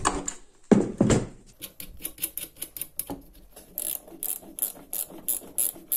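Ratchet wrench clicking in a fast run of sharp ticks as a bolt on a steel stand is tightened, after a heavy knock of metal being handled about a second in.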